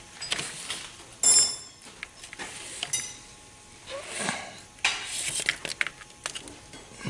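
Metal parts and tools clinking and knocking as a wire harness piece is worked into place inside an automatic transmission. A sharp ringing clink comes about a second in, another near three seconds, with scattered lighter knocks between.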